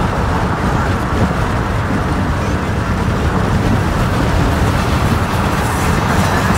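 Steady road and engine noise inside a moving car.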